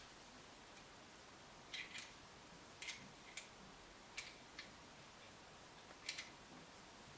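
Light, sharp clicks of small metal parts in an interior door handle's mechanism as a toothed thrust washer is fitted by hand. There are about eight clicks, several in quick pairs, and nothing else can be heard.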